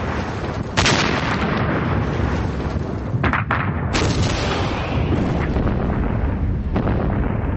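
Artillery fire: heavy guns going off with sharp blasts about a second in and again around three to four seconds in, over a continuous rumble of gunfire.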